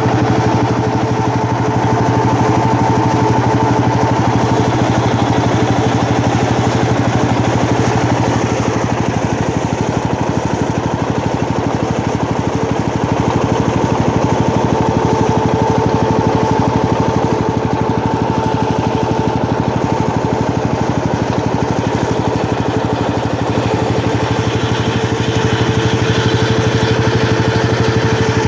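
Fowler VF crawler tractor's single-cylinder two-stroke diesel running steadily under load with an even, rapid firing beat as it tows a ring roller.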